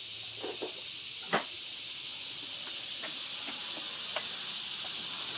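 A steady high hiss, with one sharp knock about a second in and a few light clicks after it, as hand tools are handled.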